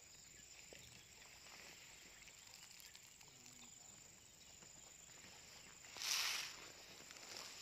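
Faint outdoor pondside ambience with a steady high-pitched insect drone, broken about six seconds in by one short, loud rustling burst of noise.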